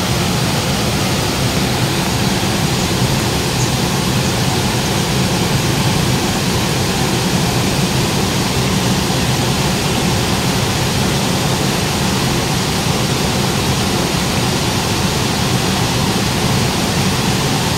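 Water rushing down a small rocky river waterfall and rapids: a loud, steady wash of white water.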